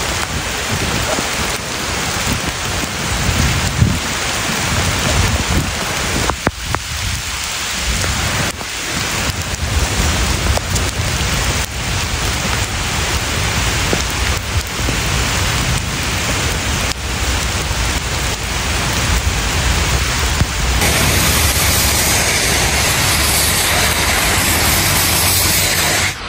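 Steady heavy rain falling on pavement and foliage. About 21 seconds in it switches to a brighter, hissier downpour with water running fast along a street gutter.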